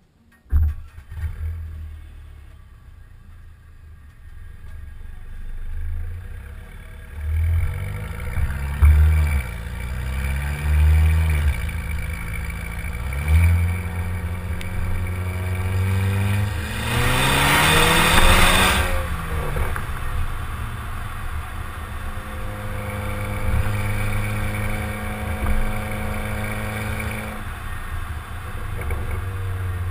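Exhaust of a Mercedes A250 Sport's turbocharged four-cylinder engine, heard beside the tailpipe as the car pulls away. The revs rise and fall several times through the gears, rise hard around the middle with a loud rush of noise, then settle into a steady note.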